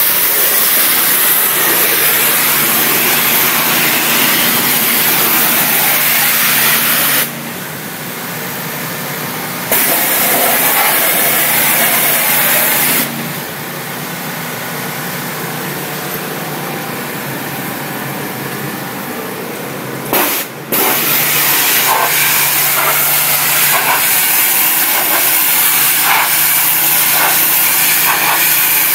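Hot-water pressure washer at 3000 psi spraying an aggregate wall: a loud, steady hiss of the jet over the steady drone of the machine's motor. The spray hiss drops back twice, for a couple of seconds about seven seconds in and for about seven seconds around the middle, while the drone runs on.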